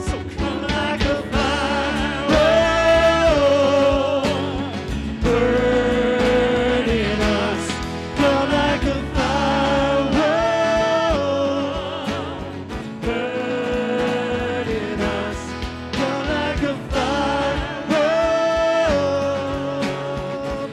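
Live praise band playing a worship song: guitars, bass, keyboard and drums under voices singing, with long held notes at the ends of phrases.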